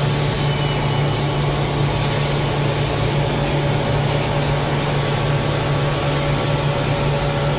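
Toyota forklift engine running steadily as the forklift drives with a load: a constant low hum with a hiss over it.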